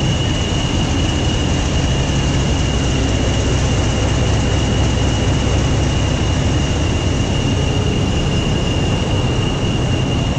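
Class 40 diesel-electric locomotive's English Electric 16-cylinder engine idling: a steady loud rumble with a constant high whistle above it from its turbochargers.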